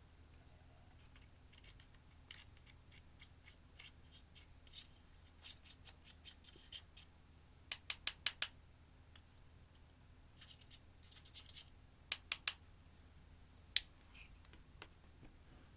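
Crisp snipping and scratching clicks as eyeshadow makeup is cut and broken up by hand. There is a quick run of four snips about halfway through and three more a few seconds later.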